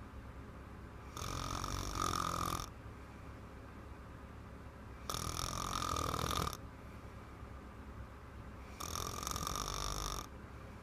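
A little girl snoring loudly, three snores about four seconds apart, each lasting about a second and a half.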